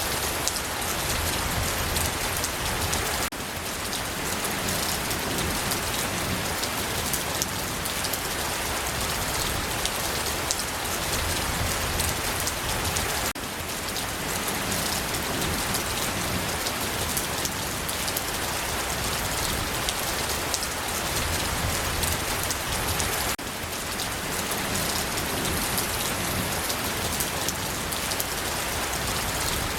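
Steady rain falling on a surface: an even hiss full of small drop ticks. The loudness dips slightly about every ten seconds.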